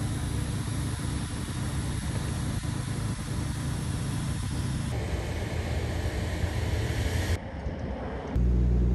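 Steady low rumble and hiss of engine and wind noise beside a parked turboprop airliner, changing abruptly twice. Near the end it gives way to the loud, steady multi-tone drone of a turboprop's engines heard from inside the cabin.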